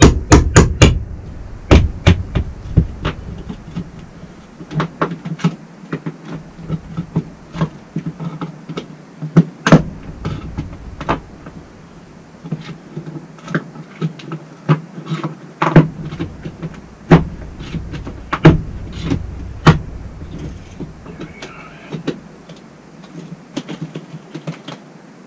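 Irregular sharp knocks and taps from hand work on the floor during flooring installation. There is a quick run of four or five knocks at the start, then single knocks every second or so.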